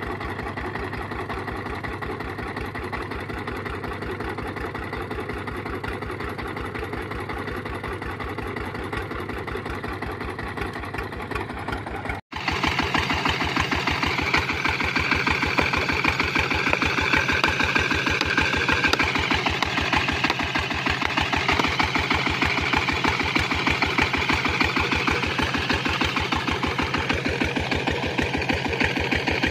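Single-cylinder diesel water-pump engine running steadily with an even train of firing pulses. It cuts out for an instant about twelve seconds in and comes back louder and brighter.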